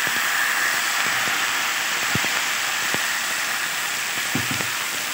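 Freshly poured rice batter sizzling steadily on a hot cast-iron kavil (griddle), with a few faint ticks.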